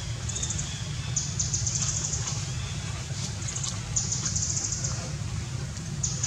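Outdoor ambience: insects trilling in repeated short, high-pitched pulsing bursts over a steady low rumble.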